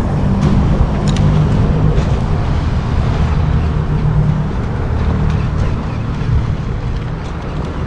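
A boat engine running steadily with a low hum, with wind buffeting the microphone. A few faint short splashes sound as fish break the surface chasing bait.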